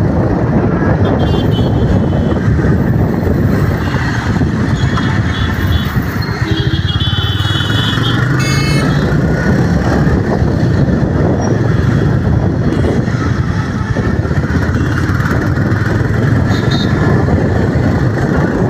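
A 2024 Royal Enfield Classic 350's single-cylinder engine running steadily while the motorcycle is ridden. Its exhaust note is smooth, without the traditional Bullet thump.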